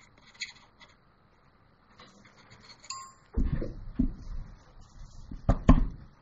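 A brief chime-like tone about three seconds in, then three heavy thumps with light clinking, the last one loudest near the end.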